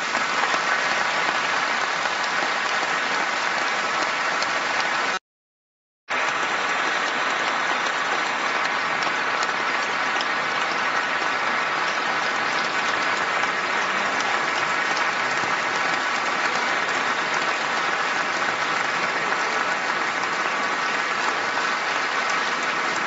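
Large audience applauding steadily. The sound drops out completely for about a second, some five seconds in.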